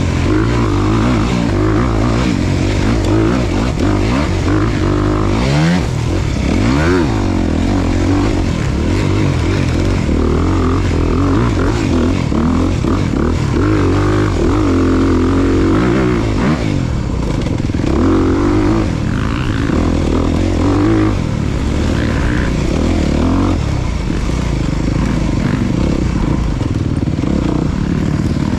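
Off-road motorcycle engine running under load, its pitch repeatedly rising and falling as the throttle is opened and closed and the bike accelerates and shifts, over a constant low rumble.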